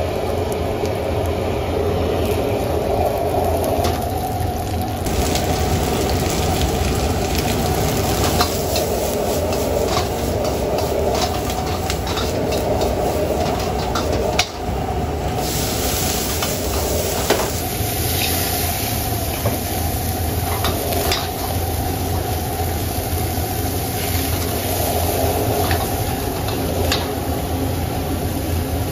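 Vegetables sizzling as they are stir-fried in a wok over a high-flame gas burner, over a steady low rush of noise. A metal ladle and spatula scrape the wok, with several sharp clinks against it.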